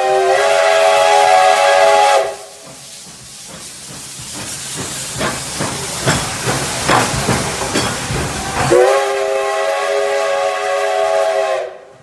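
Steam locomotive whistle blowing loud, several tones sounding at once, cutting off about two seconds in. Steam hissing and the engine's running noise follow, with irregular knocks, growing louder. The whistle blows again for about three seconds near the end and stops sharply.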